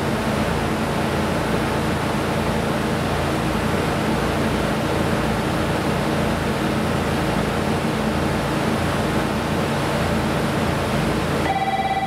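Steady rushing noise with a low, even hum at a railway station platform. About eleven and a half seconds in, the noise drops suddenly and a steady electronic chime tone starts, the kind that leads into a platform announcement.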